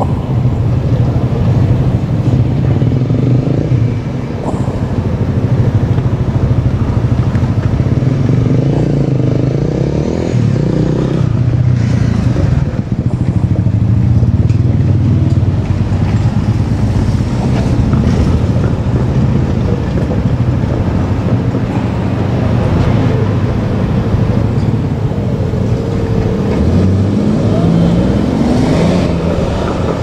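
JR Kyushu 817 series electric train rolling slowly closer, a steady low rumble. Near the end, pitch lines rise, like a motor whine as the train moves.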